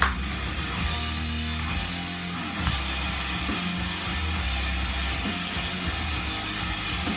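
Rock music with guitar and drums, played back from a vinyl record on a turntable.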